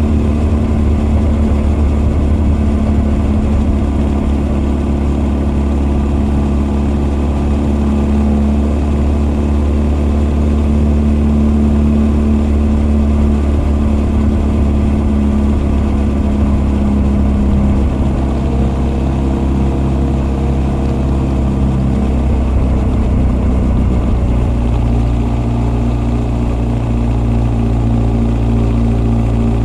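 Honda CB1300 SF (SC40) inline-four motorcycle engine breathing through Keihin FCR41 carburettors and an r's gear Wyvern exhaust, heard from both intake and exhaust while riding. It runs at fairly steady revs, and the engine note shifts in steps about two-thirds of the way through.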